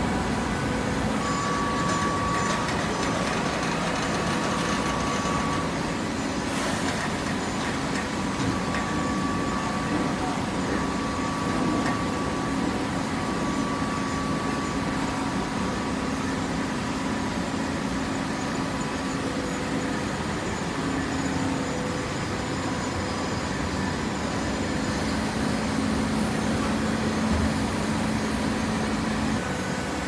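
Horizontal hydraulic baler running: a steady machine hum from its motor and hydraulic pump, with a few constant tones over a dense mechanical noise.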